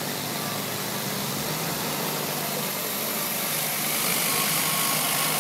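Hot-water high-pressure rotary surface cleaner running on a concrete floor: a steady hiss of spray jetting against the floor over an engine-like hum from the pressure unit, getting slightly louder about four seconds in.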